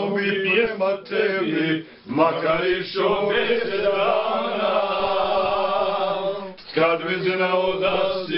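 Men singing together unaccompanied, in drawn-out chant-like phrases, with brief breaks early on and one long held note through the middle of the passage.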